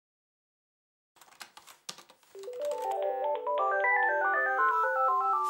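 Cordless desk phone ringing for an incoming call: a melodic electronic ringtone of short stepped notes that climbs and then falls, stopping near the end. A few light clicks of handling come just before it.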